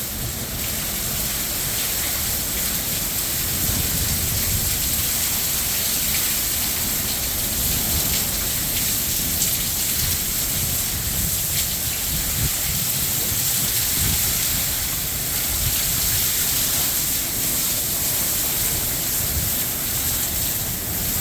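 Heavy rain pouring steadily in a severe thunderstorm, with strong wind gusting and rumbling at the low end.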